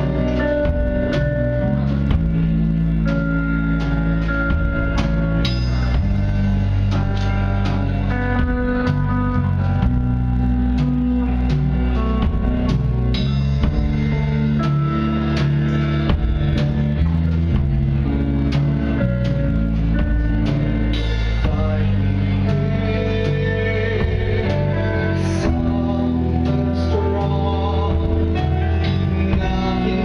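Rock band playing live: electric guitar, electric bass and drum kit, with a steady beat and held guitar notes.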